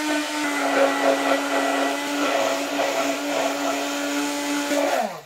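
Handheld immersion blender running steadily as it purées a thin mint sauce in a cup, its motor giving an even hum. Near the end it is switched off and the motor winds down in pitch.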